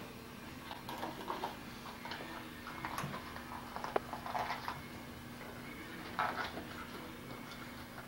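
Handling noise while folding-bike handlebars are wrapped in padding and packed into a hard suitcase: scattered rustles of the padding with a few light clicks and knocks of metal parts, over a faint steady hum.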